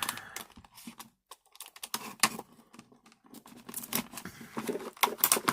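Stiff plastic retail packaging being worked open by hand: irregular clicks, snaps and crinkles of the hard plastic, with a brief pause about a second in.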